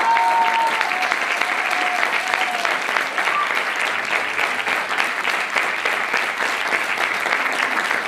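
Audience applause: dense, steady clapping, with a few voices calling out over it in the first few seconds.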